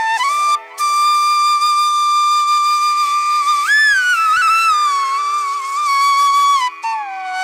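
Background music: a solo flute playing a slow melody of long held notes, sliding up and down between them.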